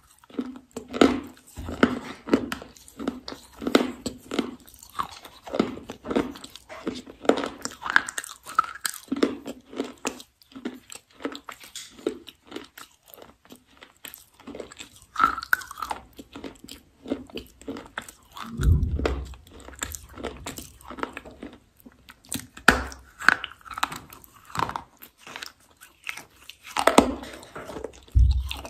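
Close-miked chewing and crunching of something hard and brittle, many short crackling crunches one after another. A louder low thump comes about two-thirds through and another near the end.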